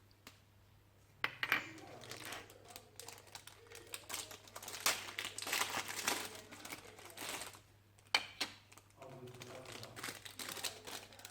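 Plastic packaging crinkling and rustling as it is handled and unwrapped, in irregular rustles, with a sharp click about eight seconds in.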